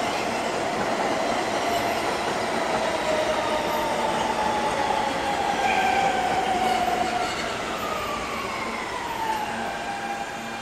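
R160 subway train running along the track: a steady rumble of wheels on rails with an electric whine, one tone of which falls in pitch over the last few seconds.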